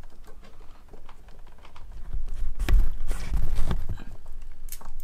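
Hand wire crimper squeezing a butt splice connector onto a wire: scattered clicks and knocks from the tool and handling, loudest and densest in the middle.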